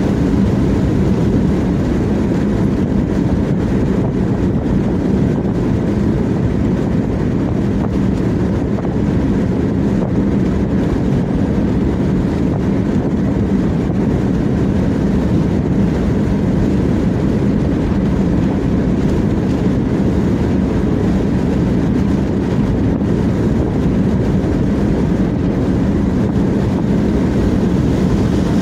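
Steady road noise of a car cruising at highway speed, heard from inside the cabin: a low rumble of tyres and engine with a steady low hum.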